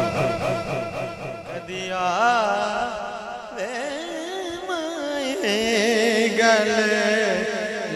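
Devotional Sufi singing: a fast repeating rhythmic chant fades out in the first two seconds, then a solo voice sings a long, wavering, ornamented melodic line over a steady low drone.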